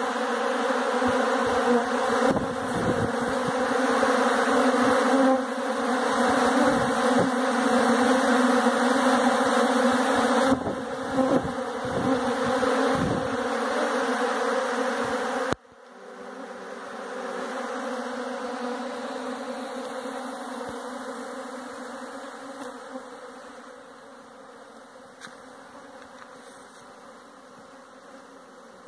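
A dense crowd of honeybees buzzing as they fly around and feed: a steady hum, loud at first, dropping abruptly about halfway through and fading further toward the end.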